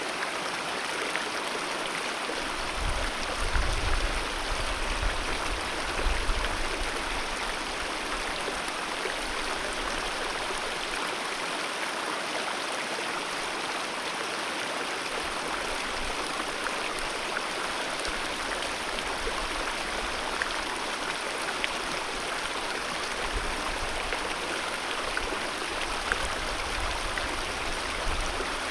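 Alpine mountain river rushing steadily, a continuous full rush of flowing water. A few brief low rumbles rise under it about three and six seconds in and again near the end.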